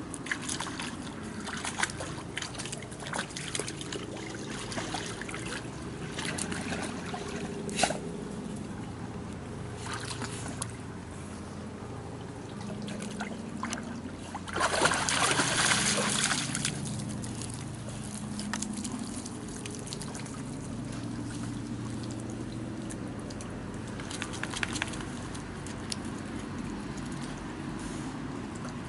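Water trickling and sloshing, with a louder rush of water about fifteen seconds in and scattered clicks and knocks.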